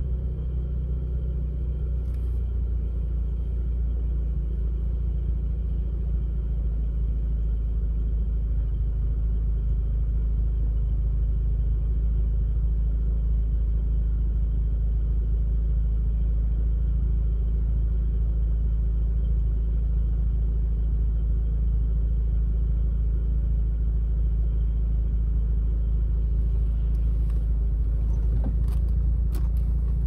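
Mazda RX-8's rotary engine running steadily, heard from inside the cabin as a low rumble.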